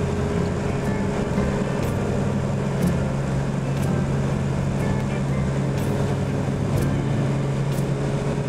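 Cessna 210 Centurion's six-cylinder piston engine and propeller droning steadily in flight, heard from inside the cockpit.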